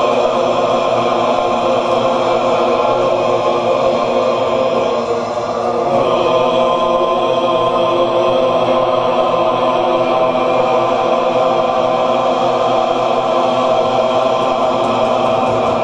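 A group of actors chanting together in a long, sustained vocal drone; the sound dips briefly about five seconds in and then swells back up.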